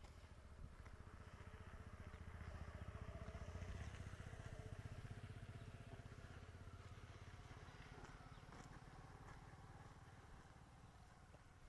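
A motor vehicle passing, likely a motorcycle, its low engine hum swelling to a peak about four seconds in and then slowly fading away.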